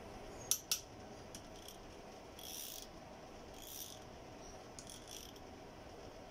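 A hand wrench working on the connecting rod cap bolts of a Toyota 1NZ-FE engine: two sharp metal clicks about half a second in, then two short rasps a little over a second apart.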